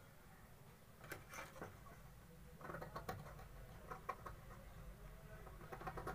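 Tailor's scissors cutting through thin blouse fabric: faint, irregular snips and scratchy cloth rustles beginning about a second in.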